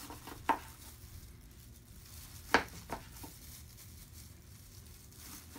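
A chef's knife slicing through a cooked chicken breast, the blade tapping the plastic cutting board a few times: one click about half a second in, the sharpest about two and a half seconds in, then two softer ones.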